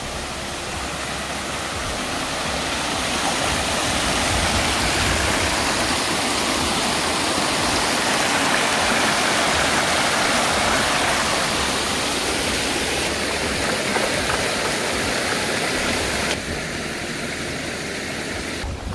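Small mountain stream rushing and splashing over rocks, a steady hiss of water. It grows louder over the first few seconds and drops to a quieter level about 16 seconds in.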